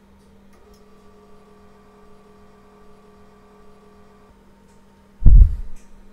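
Monoprice Select Mini V2 3D printer humming steadily at the start of a print, its stepper motors whining in several steady tones as the print head moves, stopping after about four seconds. About five seconds in comes a single loud, low thump.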